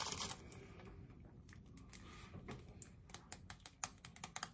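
Faint crackling clicks of Fruit Roll-Ups being peeled and rolled by hand, growing more frequent toward the end.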